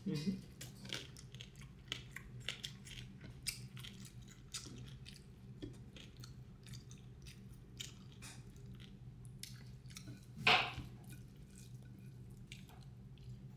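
Close-up mouth sounds of a person chewing food: irregular small crunches and smacks, with one louder noisy sound about ten and a half seconds in.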